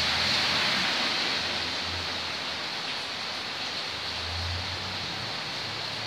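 A steady, even hiss, a little louder in the first second, with a faint low hum that comes and goes underneath.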